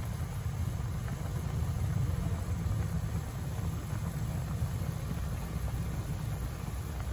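Pan of squid adobo boiling on the stove: a steady low rumble of the bubbling sauce and the heat beneath it.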